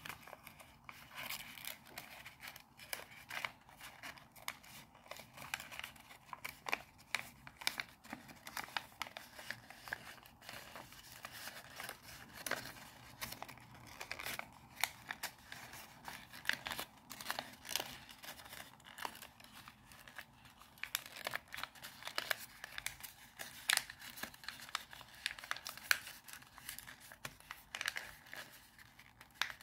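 Paper being folded and creased by hand for origami: an irregular run of crinkles and sharp crackling ticks as the folds are worked and pressed down.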